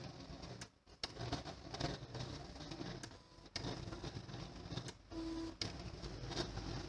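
Printer-plotter mechanism running, with irregular mechanical clicking and whirring broken by short pauses, and a short tone about five seconds in.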